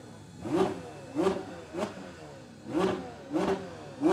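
Porsche 911 GT3 (992)'s naturally aspirated flat-six, revved while standing still: about six sharp throttle blips, each rising quickly and falling back to idle.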